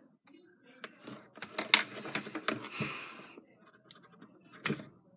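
A cluster of small clicks and taps, with a short rustle, from handling makeup items such as an eyeliner pencil at a table, and one sharper click near the end.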